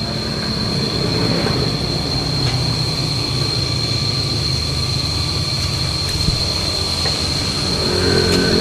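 A motor's steady low rumble with a constant high-pitched whine over it. A deeper pitched engine note comes in near the end and the sound grows a little louder.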